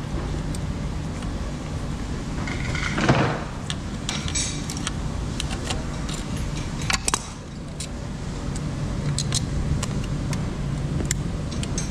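Auto repair workshop noise: a steady low machine hum with scattered metallic clinks and clicks of tools and parts being handled, and a short louder rush about three seconds in.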